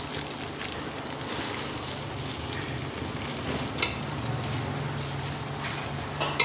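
Grated carrots cooking down in a large aluminium pot with a steady sizzle, the milk almost cooked off. There is a sharp clink about four seconds in and another near the end.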